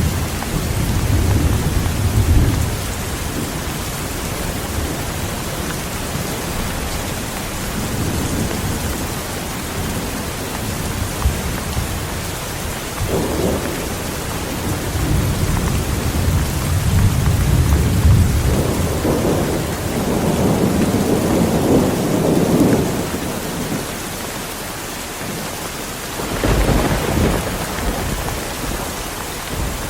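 Heavy rain falling steadily, with thunder rolling and rumbling several times: near the start, in the middle, and again shortly before the end.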